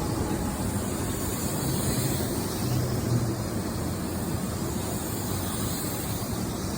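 Hanshin 8000 series train running on the line, a steady low rumble and rushing noise with no separate clacks standing out.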